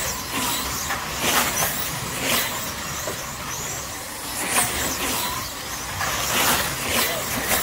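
Slot cars racing past on a multi-lane track, their small electric motors whining. Each pass is a short whine that swells and fades, coming every second or so.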